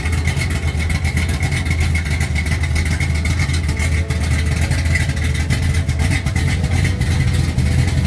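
1969 Dodge Charger's engine running steadily at a raised idle through its exhaust, with its header leak fixed. The sound is loud and even, with no revving up or down.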